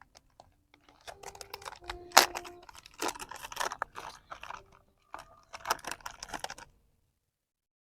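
A product package being opened by hand: irregular crinkling, rustling and tearing of the packaging, with a few short squeaks, stopping a little before the end.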